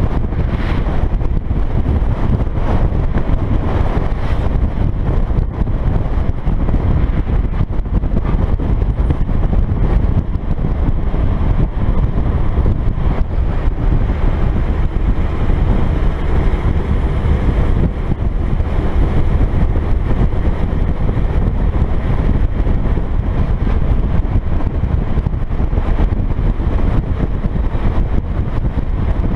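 Truck driving at speed on the highway, heard from above its cab: a steady low rumble of engine and tyres with wind buffeting the microphone.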